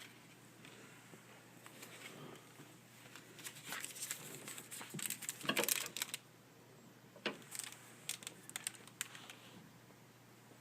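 Hockey trading cards and a foil card-pack wrapper being handled: faint scattered crinkling, rustling and light clicks, busiest between about three and six seconds in.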